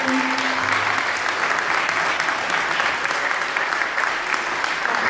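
An audience clapping: a steady mass of hand claps.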